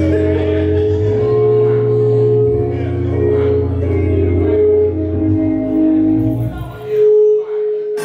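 Music with a deep, steady bass line under held notes. The bass drops out about seven seconds in, leaving a single loud held note.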